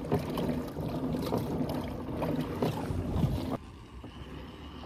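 Kayak sounds on calm water: water lapping and knocking at the plastic hull with wind on the microphone, dropping suddenly quieter about three and a half seconds in.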